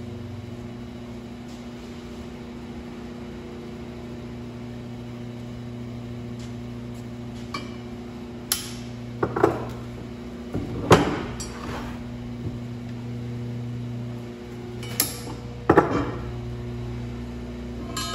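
Steel drag-car lower spring plates knocking and clinking on a wooden workbench as the zip ties holding them together are snipped, with a few sharp snaps and metallic clinks in the second half. A steady low electrical hum runs underneath.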